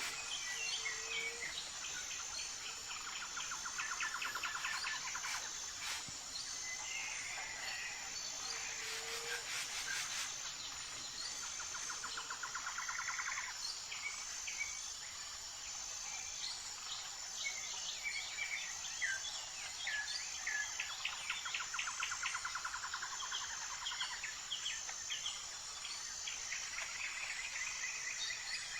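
Wild birds calling: rapid trills repeated every several seconds and scattered short chirps, over a steady high-pitched insect drone.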